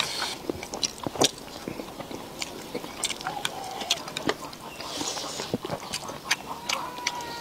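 A person chewing and biting into soft braised pig's trotter, wet smacking mouth sounds with many short sharp clicks scattered throughout.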